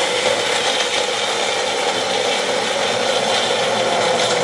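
Single-serve blender running steadily, blending bananas, oats, water and protein powder into a thick shake.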